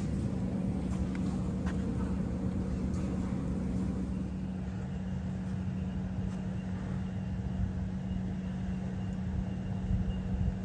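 Steady low motor-like hum with a low rumble, like an engine running, and a faint high repeated tone coming in about halfway through.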